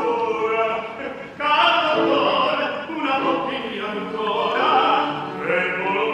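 Opera singing in a live stage performance, the voices dipping briefly about a second in before swelling again.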